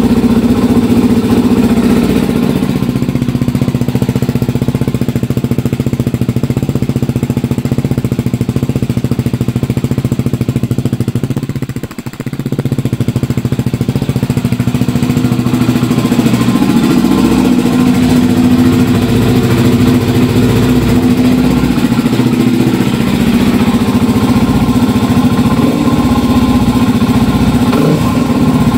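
Yamaha WR250X's single-cylinder four-stroke engine idling through a freshly fitted FMF Q4 muffler, the quieter of FMF's models, hardly revved. Its note is steady, with a brief drop in level about twelve seconds in.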